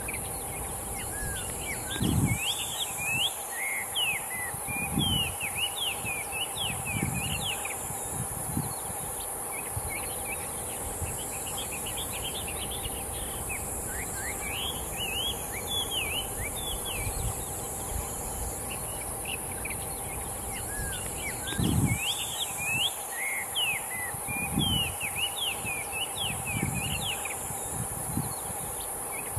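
Taiwan hwamei singing in three bouts of rapid, varied whistled notes that sweep up and down, over a steady high hiss of insects. A few low thuds come along with the louder bouts.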